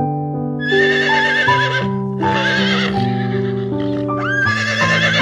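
Horse whinnying three times, each call shaky and wavering in pitch, the last opening with a rising squeal, over background piano music.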